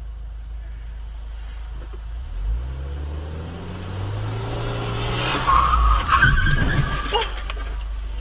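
A car engine accelerates, heard from inside a car, then tyres screech loudly for about a second and a half in a skid under hard braking.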